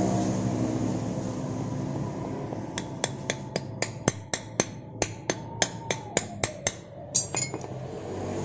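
About fifteen light, sharp metal taps, roughly three a second, from a small hammer tapping a new starter-gear oil seal into its seat; they start a few seconds in and stop near the end, over steady background noise.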